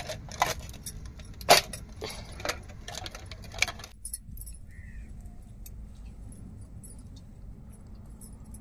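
Stainless steel tiffin containers and their metal lid clips clinking and clacking as they are handled and closed, with a sharp metal clack about a second and a half in. The clatter stops abruptly about four seconds in, leaving only faint ticks.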